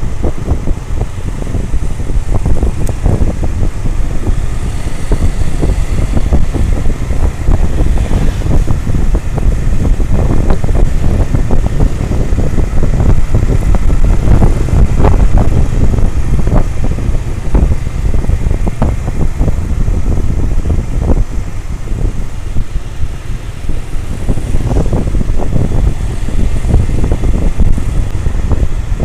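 Honda CBR150R single-cylinder motorcycle engine running under way, heavily buffeted by wind on the action-camera microphone in an uneven low rumble.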